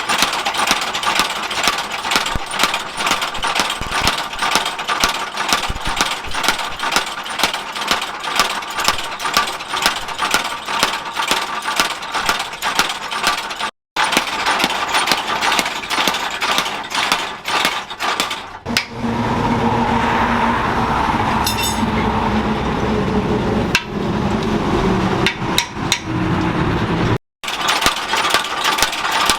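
Hammer blows ringing on steel at about three strikes a second as a bearing's steel is forged. Partway through, the hammering gives way for several seconds to a steady machine running with a low hum, then the hammering resumes.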